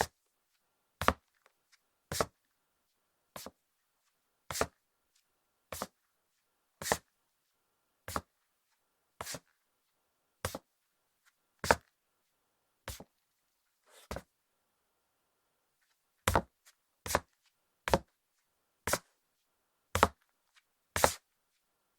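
Footsteps of hard leather-soled sandals walking on a hardwood floor, each step a sharp clack, about one a second. After a short pause about two-thirds of the way in, the steps come somewhat quicker.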